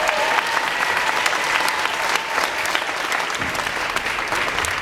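Audience clapping and applauding, with a faint voice or cheer over it in the first seconds.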